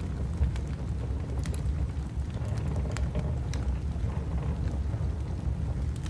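Wood fire crackling with a few sharp pops, over a steady low rumble of wind.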